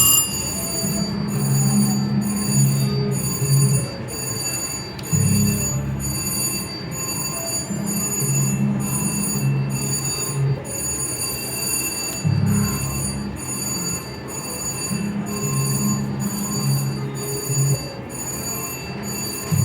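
A Reel Fever slot machine spinning its reels. Each spin plays a short, low electronic tune, three spins about six to seven seconds apart, over steady high electronic ringing.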